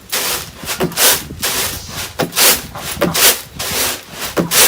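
Paddy rice being winnowed in a bamboo winnowing tray (kula): the grain is tossed and shaken in the tray, giving repeated rustling swishes about one to two a second.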